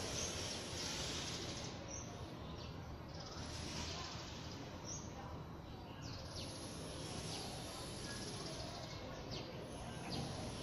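Outdoor garden ambience: a steady background hiss with a few short, high bird chirps, the clearest about two and five seconds in.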